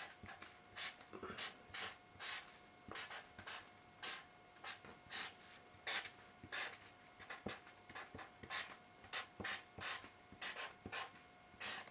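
Quick scratchy writing strokes on paper, irregular at about two a second.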